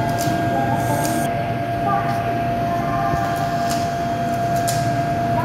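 Railway platform ambience beside a standing passenger train's AC coach: a steady mechanical hum with a constant high-pitched whine, a few light clicks, and faint voices in the background.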